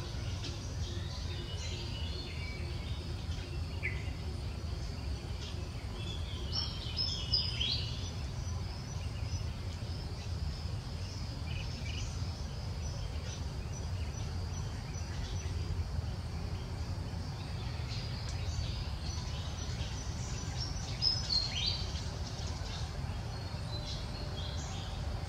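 Outdoor ambience: a steady low rumble, with a few brief high-pitched chirping calls, a cluster about 7 seconds in and another about 21 seconds in.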